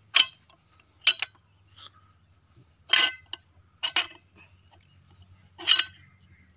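Short, sharp metallic clinks and taps at irregular intervals, about six of them, as new seals are handled and seated on the steel piston of a PC200 excavator boom cylinder.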